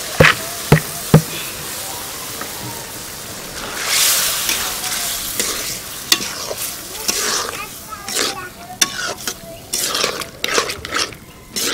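Split chickpeas (chana dal) going into a hot iron karahi of spiced onion masala: three sharp knocks in the first second or so, then the pan sizzling, and from about halfway on a metal spatula stirring, scraping and clicking against the karahi.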